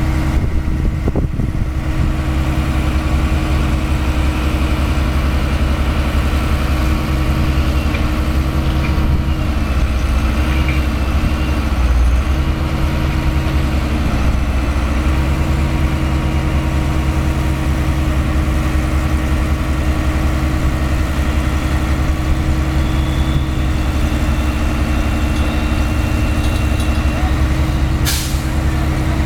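Heavy diesel engine of construction machinery running steadily at constant speed, a loud, deep unbroken drone. A single sharp click comes near the end.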